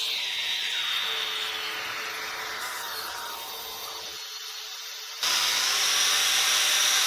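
Power grinder grinding the steel faces of a hammer head: its high whine drops in pitch and fades over about four seconds, then about five seconds in it comes back louder and steady.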